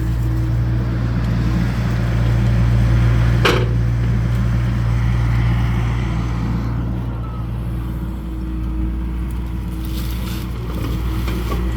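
John Deere excavator's diesel engine running steadily, with a single sharp knock about three and a half seconds in. The engine note eases slightly about eight seconds in.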